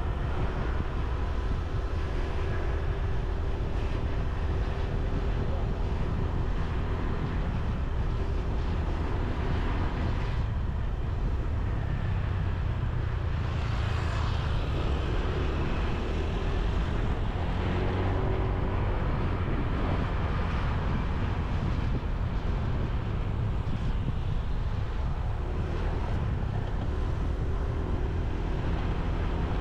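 Motorbike engine running on the move through town traffic, its pitch rising and falling with speed over a steady low rumble of road noise.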